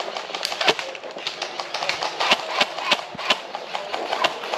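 Footsteps crunching over rough ground, with rustling, as a player moves on foot: irregular sharp steps, two or three strong ones a second.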